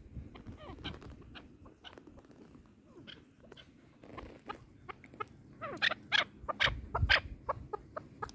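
Chukar partridges calling: many short chirps and clucks, some gliding in pitch, sparse at first and coming thicker and louder from about five seconds in.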